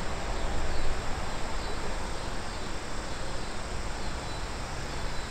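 Steady outdoor riverbank ambience: insects chirping over a continuous hiss with a low rumble underneath.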